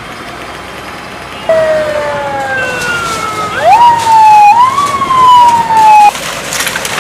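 A siren sounding over steady outdoor background noise: it starts about one and a half seconds in, sags slowly in pitch, jumps up sharply twice, then slides down and cuts off abruptly.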